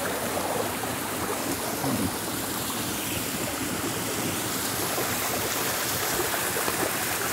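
A small stream of clear spring water rushing steadily over rocks and through a stone channel.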